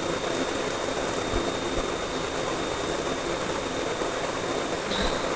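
Steady rushing background noise with a faint constant high-pitched whine, no distinct event.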